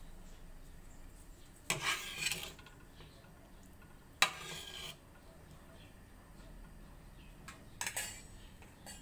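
Metal tongs stirring in a stainless steel cooking pot of broth, clinking and scraping against the pot in three short bursts. The sharpest knock comes a little past four seconds in.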